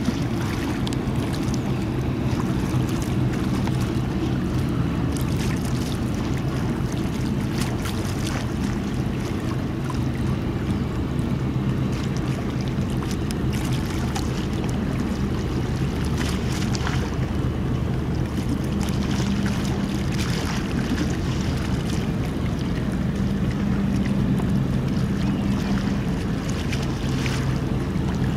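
Car ferry's diesel engines running under way with a steady low drone, mixed with wind on the microphone and water noise.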